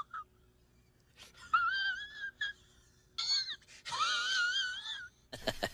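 High-pitched wailing meme sound effect: several short wails in a row, each with a fast wobbling pitch, like comic whimpering or crying.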